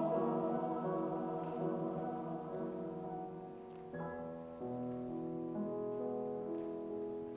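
Soft, slow music of long held chords, changing to a new chord about four seconds in and again half a second later.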